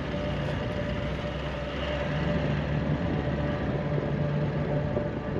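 Toyota Land Cruiser 4x4 driving: a steady engine drone with road noise.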